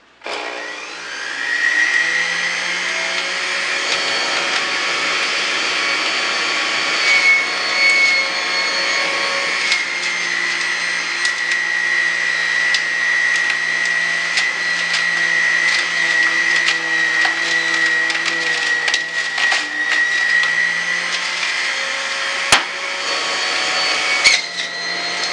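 Electric juicer switched on at the start, its motor running with a steady high whine while cilantro and other produce are pushed down the feed chute and shredded, with scattered clicks and a couple of sharp knocks near the end.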